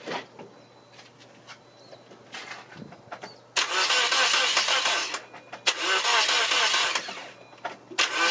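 Toyota Matrix engine being cranked by its starter in three bursts without firing, with a compression gauge on cylinder 1. The bursts start about three and a half seconds in, and the last one begins near the end. The engine shows low compression, under 75 psi.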